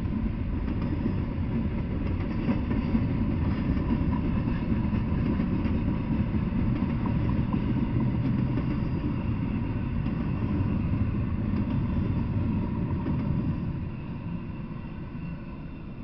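Intermodal freight train's container well cars rolling past: a steady low rumble of steel wheels on the rails. It drops off a couple of seconds before the end as the last cars go by.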